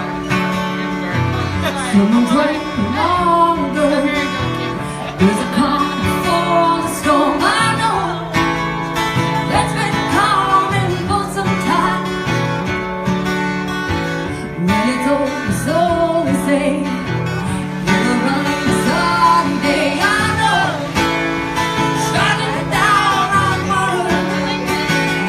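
A woman singing live to her own guitar accompaniment, a full song passage with steady chords under the vocal line.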